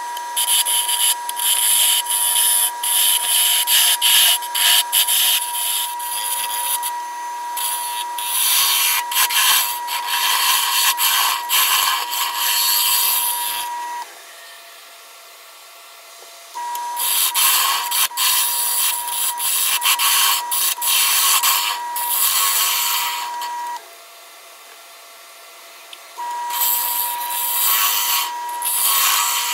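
A carbide-tipped turning tool cutting into the inside of a spinning wooden bowl on a lathe as it is hollowed out: a rough scraping hiss with many small knocks and a steady whine. The cutting goes quiet twice for about two seconds, about 14 seconds in and again about 24 seconds in.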